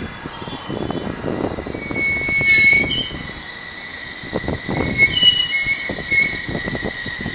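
Train running with rumbling and rattling from its cars and a steady high-pitched squeal from its wheels, which sets in about two seconds in and holds on.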